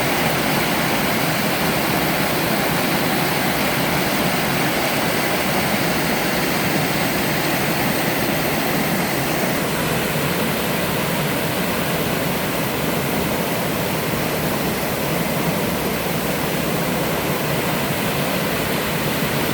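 Waterfall in a mountain stream, water falling and splashing in a steady, unbroken rush.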